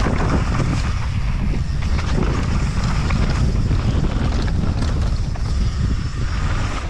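Wind rushing over the rider's camera microphone as a downhill mountain bike rolls fast over loose dirt, with scattered clicks and rattles from the bike over the bumps.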